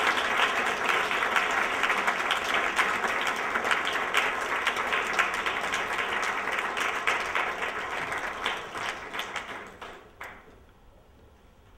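Audience applauding, the clapping fading and stopping about ten seconds in.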